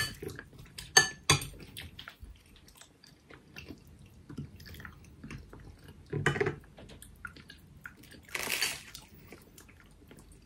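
Eating at a table: metal cutlery clicking against plates, with chewing and small mouth sounds between. A few sharp clinks in the first second and a half, a louder knock about six seconds in, and a short rustling burst later on.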